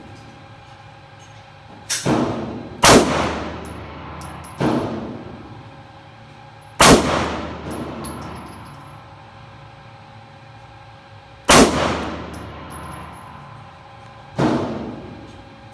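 Pistol shots echoing in an indoor shooting range: six shots at uneven intervals, the loudest about three seconds, seven seconds and eleven and a half seconds in, each followed by a short ring of reverberation off the range walls.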